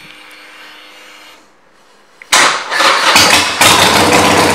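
2017 Harley-Davidson Superlow 1200T's 1200 cc Evolution V-twin with Vance & Hines pipes, started on the electric starter: it fires suddenly about two seconds in and settles into a louder steady run through the pipes a second later.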